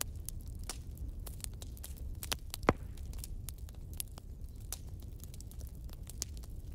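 Crackling fire ambience: irregular soft crackles and pops over a steady low rumble, with one louder pop about two and a half seconds in.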